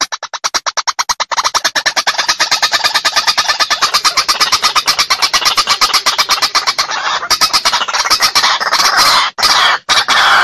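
White-breasted waterhen (ruak-ruak) territorial call: a fast run of short clucking notes, about ten a second, speeding up and running together. About eight seconds in it turns to longer, harsher calls with brief breaks. This is the challenge call used to lure rival waterhens into a fight.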